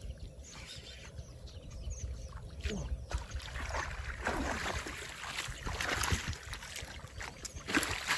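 Water sloshing and splashing around a small paddle boat. It is quiet at first, then picks up about three seconds in with repeated surges.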